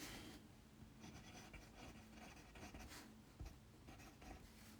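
Near silence with faint rubbing and a small tick about three and a half seconds in, from a brass mechanical pencil being handled.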